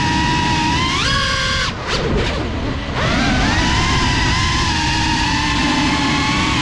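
GEPRC CineLog35 cinewhoop FPV drone's brushless motors and propellers whining, heard from its onboard camera. About a second in the pitch jumps up as the drone punches upward. The whine then drops out into a rushing noise for about a second as the throttle is cut, and comes back rising around three seconds in before settling.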